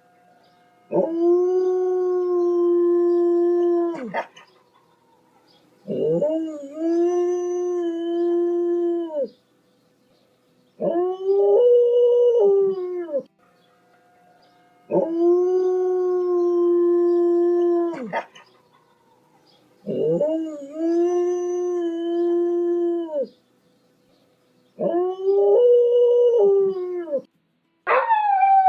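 Dog howling: a series of long howls, each held for a few seconds on a fairly steady pitch with short pauses between. The last howl, near the end, slides downward in pitch.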